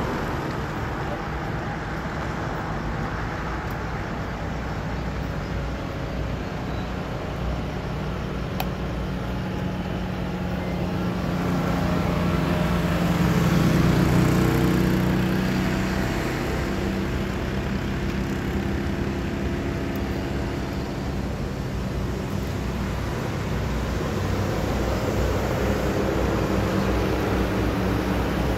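Road traffic: a steady motor-vehicle drone, with one vehicle swelling loudest about halfway through as it passes, then fading.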